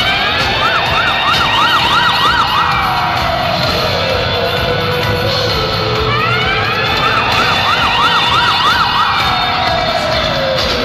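Siren sound effect played loud over a concert sound system, twice: each time a rising wail breaks into a quick warble of about six pulses, then slides back down.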